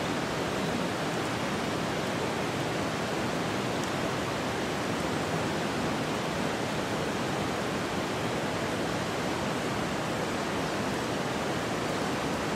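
Steady, unbroken rushing water noise.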